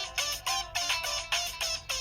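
Ringtone from a Samsung SPH-W7100 phone playing a quick, repeating electronic melody of short, bright notes, about three to four a second.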